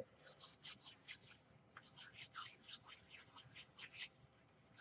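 Faint rustling and scratching of lace and seam-binding ribbon being handled and tucked in by hand: a quick, irregular run of small scrapes that stops shortly before the end.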